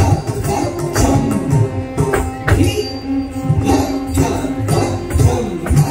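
Carnatic dance accompaniment led by a mridangam: quick, crisp strokes and deep bass strokes whose pitch bends, over a steady held drone tone.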